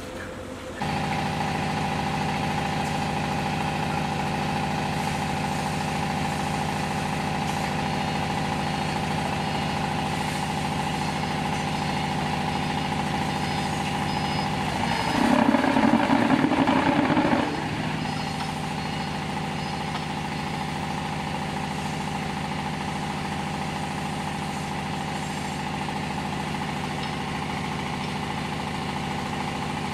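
Small diesel engine of a hydraulic block machine's power unit running steadily. Midway there is a louder, rougher stretch of about two seconds, then it settles back to its steady running.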